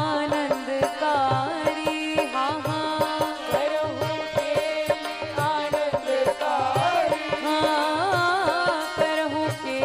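Devotional bhajan music in an instrumental passage: an ornamented melody line with sliding, curling pitches over a steady held drone, and hand-drum strokes keeping a regular beat.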